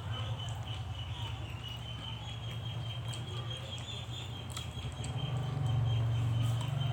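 Close-miked eating sounds: scattered mouth clicks and smacks over a steady low hum that grows a little louder near the end.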